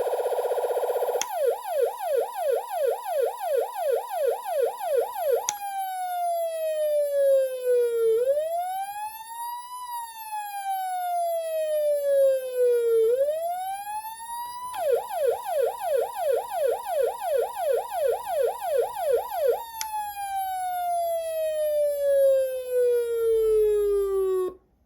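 Vintage Carson SA-400-63 electronic siren amplifier sounding and switching between tones. It opens with a very rapid warble, then a fast yelp of about three sweeps a second, then a slow rising and falling wail. The fast yelp returns, followed by one long falling tone that cuts off suddenly near the end.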